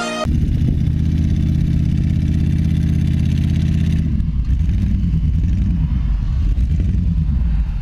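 A 4x4's engine running at steady high revs, then revving up and down unevenly from about four seconds in, as a vehicle bogged in deep mud tries to drive out.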